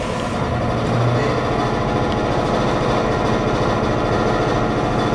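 Ex-Ginza Line electric railcar pulling away from a station, heard from the cab: a steady hum and running noise that gets louder about a second in as the car gathers speed.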